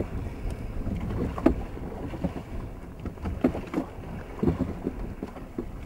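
Wooden oars of a whaleboat being rowed, giving short, irregularly spaced knocks in their rowlocks over a steady low rumble of wind on the microphone.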